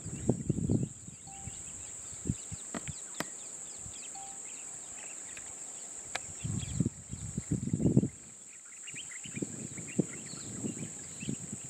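A steady high-pitched insect drone with scattered bird chirps, broken by bursts of low rumbling noise at the start, about six to eight seconds in, and again near the end.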